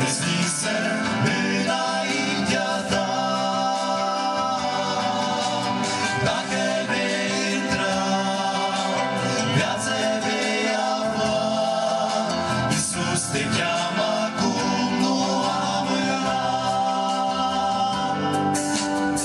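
A mixed group of men and women singing a Christian hymn together into handheld microphones, amplified through a PA system.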